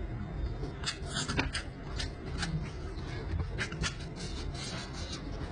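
Close-up chewing and wet lip-smacking while eating saucy ribs: irregular clicky, squelchy mouth sounds over a low steady hum.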